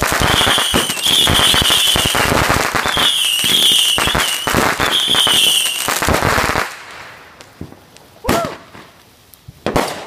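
Consumer ground firework firing: dense, rapid crackling mixed with a string of short whistles, one after another. It dies down about seven seconds in, and two separate sharp bangs follow near the end.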